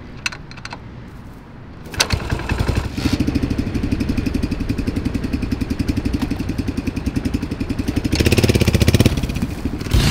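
Yamaha SR400's single-cylinder four-stroke engine being kick-started: a couple of faint clicks, then it fires about two seconds in and settles into an even thumping idle. It is revved briefly near the end.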